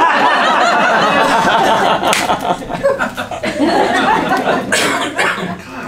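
Theatre audience laughing loudly: a burst of many voices that swells just before and holds for about five seconds, thinning out near the end.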